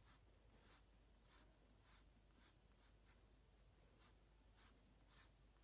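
Graphite pencil sketching on sketchbook paper: faint, short, light strokes, a little under two a second, as the bottle's neck is drawn in.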